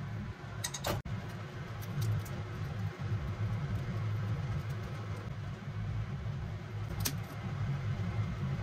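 A steady low rumble of kitchen machinery, with two short light clicks of cookware: one a little under a second in, one near the end.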